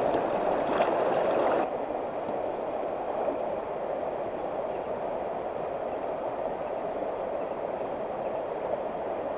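Shallow stream rushing steadily over rocks close by. It drops a little in level after about a second and a half, then runs on evenly.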